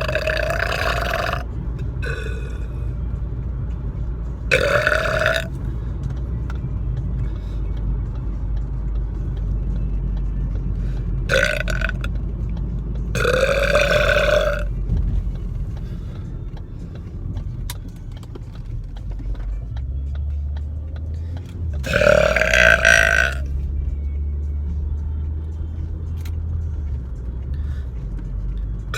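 A man's loud burps, about six of them separated by gaps of several seconds, each bending up in pitch as it starts. A steady low rumble of the car runs underneath.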